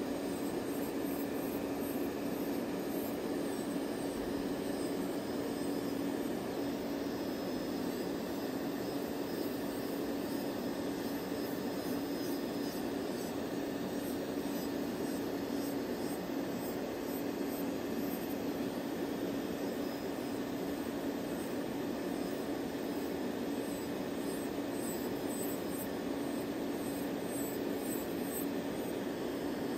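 Electric manicure drill running steadily at one constant pitch while filing old gel polish and base coat off fingernails.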